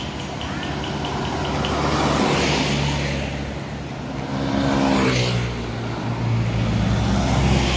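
Road traffic passing close: vehicle engines running with a low, steady drone that swells twice, the second time about five seconds in as one vehicle goes by.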